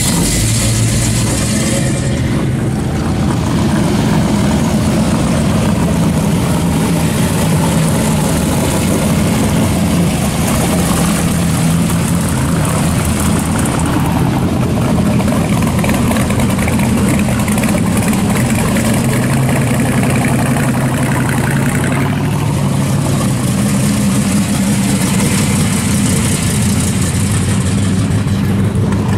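Classic American muscle cars and hot rods driving slowly past one after another, their engines idling and revving through the exhaust in a steady, continuous low rumble.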